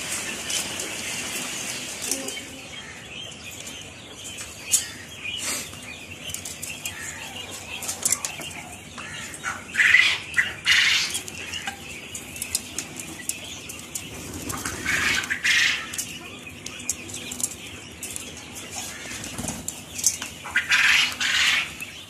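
A flock of penned quail and young chickens fluttering and scuffling, with several short bursts of chirping calls.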